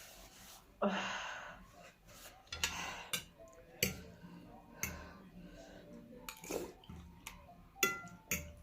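Cutlery clinking against a bowl of noodles: a string of sharp, irregular clicks with a few short noisy bursts between them.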